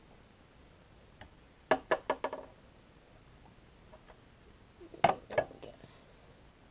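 Two short runs of quick, sharp clicks and taps, a few strikes each, about a second and a half in and again about five seconds in, from small hard tools being handled at a metal fly-tying vise while the thread is tied off.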